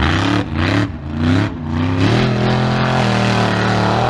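Mega truck engine revving hard in about three quick rises and falls, then held at high revs under full throttle for about two seconds as the truck drives off a dirt jump. The revs drop right at the end.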